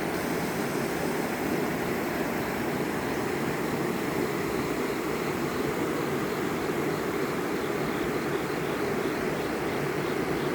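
Steady, unbroken rush of water from a sliding waterfall sheeting down rock into a pool in a mountain stream.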